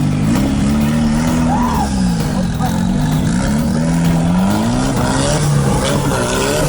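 Off-road 4x4's engine revving, its pitch rising and falling several times as the driver works the throttle.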